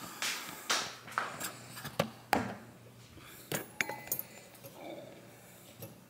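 Camera handling noise: about half a dozen light knocks and clicks spread over several seconds as the camera is moved about and propped up, with the rustle of a sweatshirt against the microphone.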